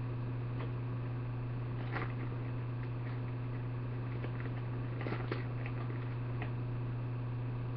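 A steady low electrical hum with scattered soft clicks and crackles as candy is handled and eaten, loudest about two seconds in and again around five seconds in.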